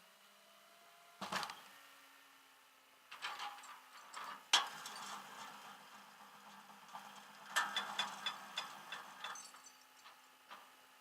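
Irregular knocks and clattering, as of hard objects being handled, with the loudest sharp knock about four and a half seconds in; a faint steady hum starts about a second and a half in.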